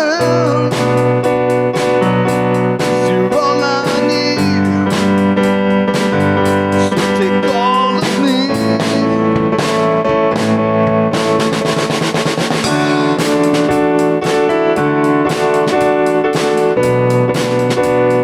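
Music: a song with drum kit keeping a steady beat under sustained instruments, with a sung vocal line in places.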